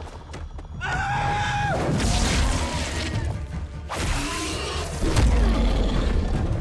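Action-film soundtrack: dramatic score with a short held cry about a second in, then crashing impacts and low booms.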